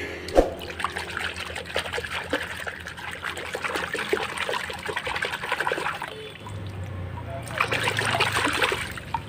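Water sloshing and splashing in a plastic basin as a hand scrubs a mud-caked toy in it, in two spells with a short pause about six seconds in.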